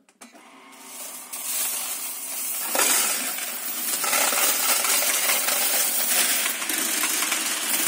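Alfa 750 coin counting machine running a count at its 650 rpm speed. The motor starts just after the beginning, and from about a second and a half a dense, steady rattle of coins pours through the sorter at high speed.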